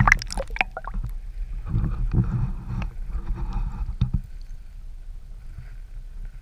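Underwater sound from a camera submerged in a river: a muffled low rumble of moving water with scattered clicks and knocks, densest right at the start.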